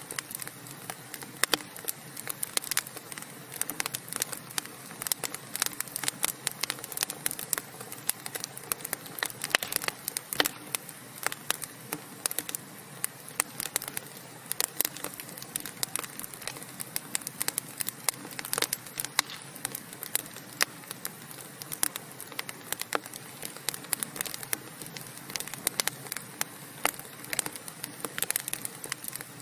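Wood fire crackling steadily, with frequent irregular sharp pops and snaps over a soft continuous hiss of burning logs.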